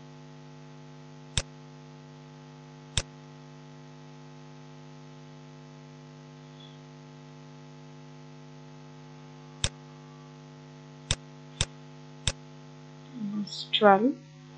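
Steady electrical mains hum with several overtones, broken by seven short sharp clicks of a computer mouse and keyboard spread unevenly through it.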